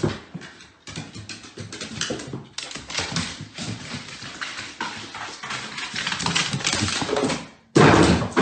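A dog's claws clicking and paws tapping irregularly on hardwood stair treads as it goes down the stairs. A loud noisy burst comes near the end.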